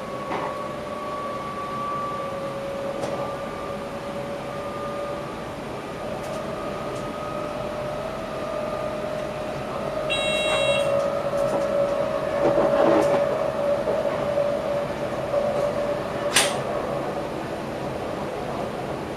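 Electric passenger train running, heard from the driver's cab: a steady whine that rises slowly in pitch as the train gathers speed. About halfway through a short electronic beep sounds, and a sharp click comes near the end.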